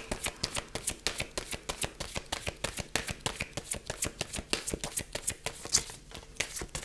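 A deck of Lenormand cards being shuffled by hand: a ragged run of quick card snaps, several a second.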